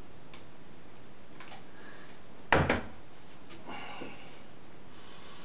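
Stainless-steel electric kettle set down on a tabletop: a sharp double clunk about two and a half seconds in, with a few faint clicks around it.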